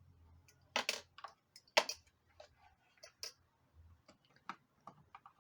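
Irregular clicks and taps of hands handling small hard parts of the feeder, with sharper clicks about a second in, about two seconds in and just after three seconds.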